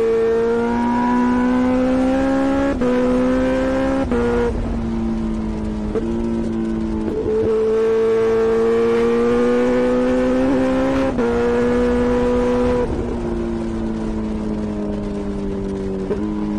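Kawasaki Ninja H2's supercharged inline-four through a Vandemon titanium full-system exhaust with the baffle out, pulling along the road. Its note rises gently in each gear and dips at each of about four gear changes. About three-quarters of the way through it eases off and the note sinks slowly.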